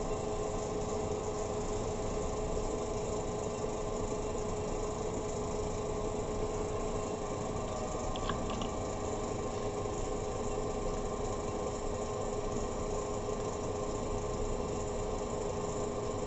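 Electric pottery wheel spinning at a constant speed: a steady motor hum of unchanging pitch.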